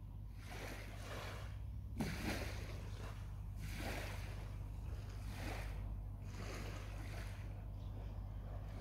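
Small waves lapping on a sandy shore, a soft wash about every second and a half, over a steady low rumble.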